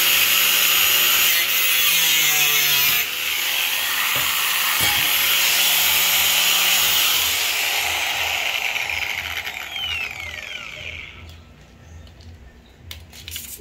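Angle grinder with its disc cutting into a steel angle bar, a loud hissing grind. About ten seconds in it is switched off and its whine falls away as the disc spins down.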